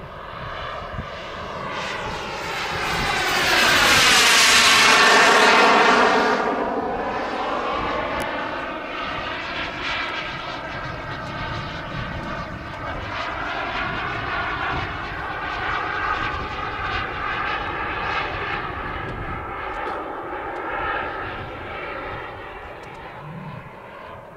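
Turbine engine of a Boomerang RC jet whining as the jet flies past. It is loudest about five seconds in, with a hiss and a pitch that drops as it goes by, then a steadier, quieter whine as it flies on.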